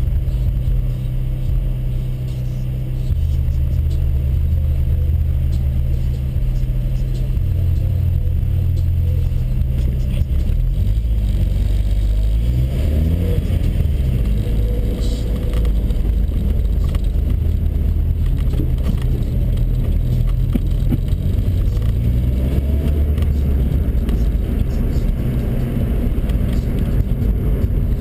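Volkswagen Saveiro pickup's engine heard from inside the cab, idling steadily at first, then rising in pitch about eleven seconds in as the pickup pulls away and speeds up. After that it runs under way with steady road noise.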